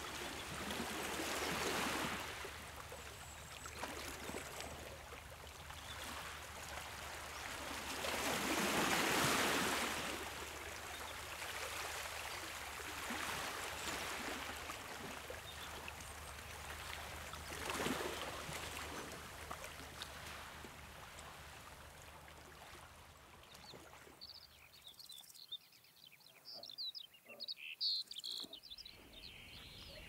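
Moving water washing in slow swells that rise and fall every several seconds, loudest about nine seconds in. About three-quarters of the way through the water noise drops away and small birds chirp in quick, high calls.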